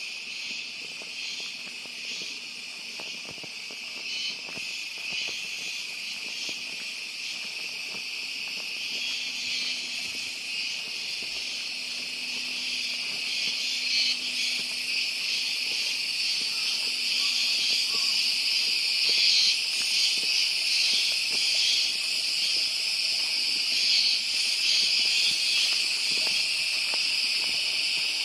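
Chorus of cicadas, a dense, continuous high-pitched buzz that grows louder over the second half.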